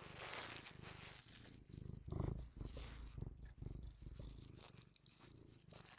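Domestic cat purring, a low rapid pulsing rumble that swells louder about two seconds in.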